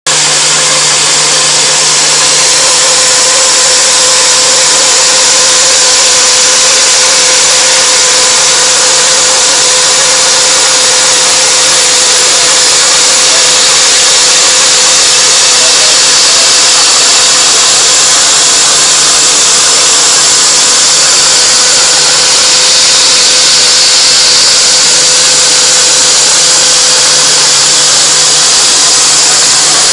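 Iscar EFSI solid-carbide endmill slot milling metal on a machining centre: a loud, steady cutting hiss over a constant spindle hum.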